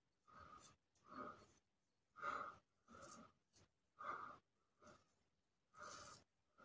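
Faint rasping of a Merkur 34G double-edge safety razor with a Wilkinson Sword blade scraping over neck stubble, in about eight short, quick strokes.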